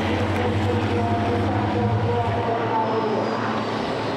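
Diesel engines of several racing trucks running at speed on a circuit, their engine notes shifting in pitch. The deep low rumble drops away about two and a half seconds in, leaving the higher engine tones.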